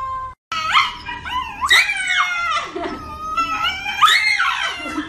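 A Shiba Inu howling in a run of loud wavering cries that slide up and down in pitch, several in quick succession.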